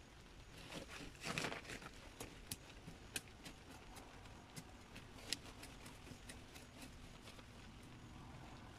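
Faint rustling and a few sharp, scattered clicks from gloved hands handling a clump of flowering plants and soil while planting them into a garden bed.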